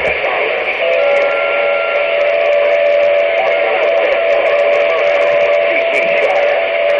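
Radio receiver hiss carrying a steady whistle-like tone that comes on about a second in and holds, with a brief higher tone above it just after it starts.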